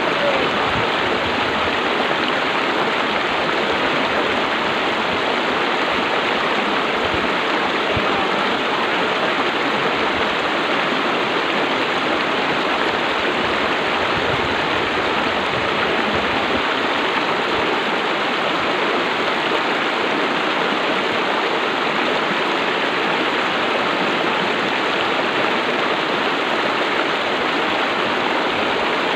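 Shallow river rushing over rocks in small rapids: a steady, unbroken rush of water.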